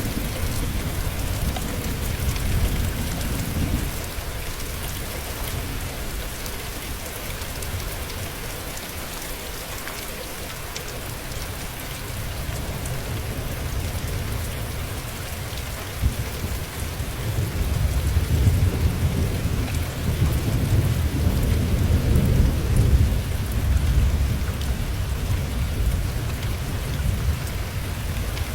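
Steady rain falling, with thunder rolling underneath: a low rumble fades about four seconds in, and a longer, louder roll builds from about seventeen seconds and runs for several seconds.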